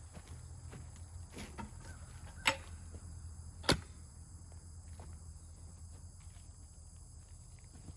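Two sharp knocks a little over a second apart, over a low steady hum, with a few faint ticks.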